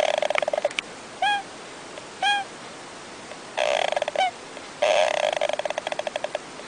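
An animal calling: long rattling, croaking calls made of rapid pulses, broken by three short upward-hooked chirps.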